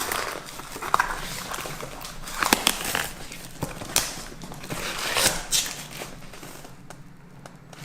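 Tight packaging wrapped around a shoe box crinkling and rustling as it is handled and pulled at, with irregular crackles and a few sharp snaps.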